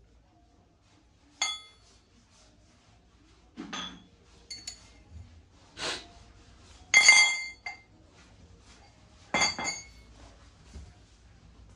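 Brass utensils clinking and knocking as they are handled and set down. There are six or seven separate clinks, several of them ringing briefly, and the loudest cluster comes about seven seconds in.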